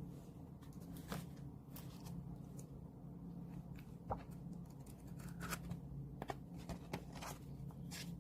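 Light, scattered taps and rustles of paper and card being handled, the sound of album contents such as photocards being sorted through, over a steady low hum.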